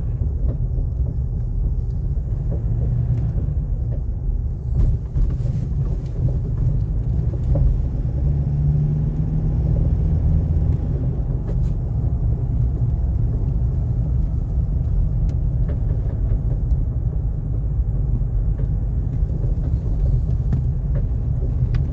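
Nissan Navara D40 pickup running with a steady low rumble, broken by a few short knocks: the clunking noise the owner is recording.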